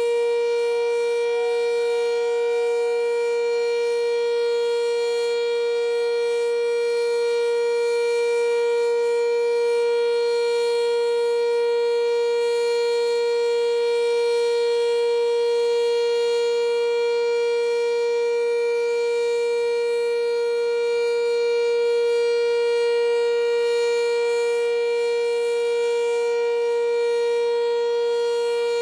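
Sentry 3V8 tornado siren sounding a loud, steady tone that holds one pitch, during its weekly test.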